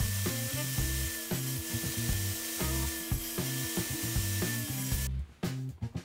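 Background music with a repeating bass line over a steady hiss and thin whine from the saw table's circular saw running. The saw noise cuts off sharply about five seconds in, leaving only the music.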